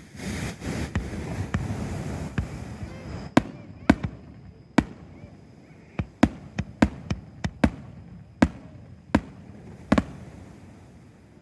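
Fireworks going off: about three seconds of dense crackling, then a string of about a dozen sharp bangs at irregular intervals.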